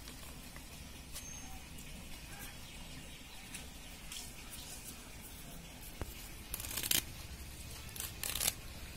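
Fresh curry leaves being stripped from their stems by hand: two short, crisp rustles, about six and a half and eight seconds in, over faint low background noise.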